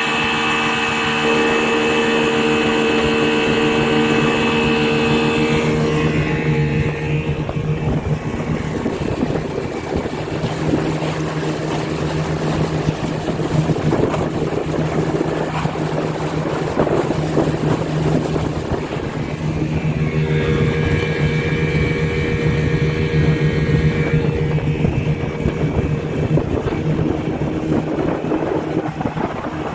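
1978 Chrysler 15 hp two-stroke outboard motor running steadily under way at speed, with the rush of water and wind alongside. The motor's whine stands out most in about the first six seconds and again about twenty seconds in.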